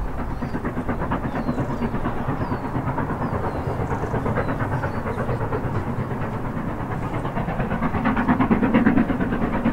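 Steam locomotive working a train, its exhaust beating in rapid, even chuffs, growing louder near the end.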